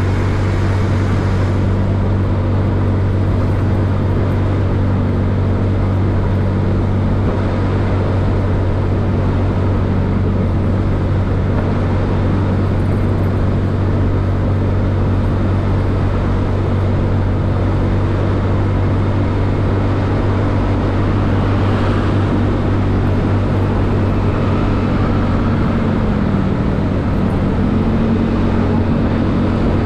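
Yamaha Mio scooter engine running steadily while riding, under a constant haze of road noise. Its pitch dips briefly and comes back up about three-quarters of the way through.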